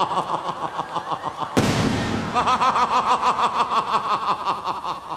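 A sudden loud stage-effect blast about a second and a half in, as smoke bursts out onto the stage. Before and after it runs a rapid pulsing, shuddering sound of several beats a second.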